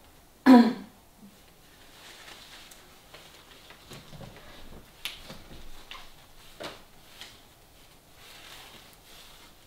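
A brief voiced sound, like a short 'mm', about half a second in. Then faint rustling and soft handling noises as a sheer nylon stocking is drawn onto the leg, with a few light clicks.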